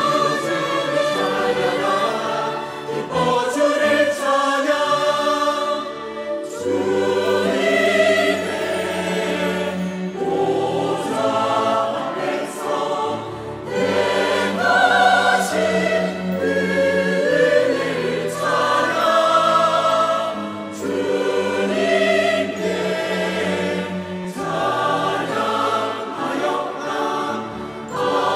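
Mixed-voice church choir singing a Korean sacred anthem in harmony, phrase after phrase with short breaks between them; the words praise God aloud and end in a hallelujah line.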